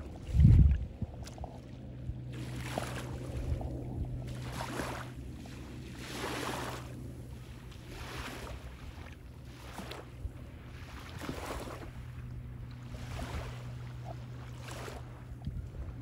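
Small waves washing on the shore in soft swells every second or two, over a steady low engine hum from a boat out on the bay. A short thump of wind on the microphone comes about half a second in.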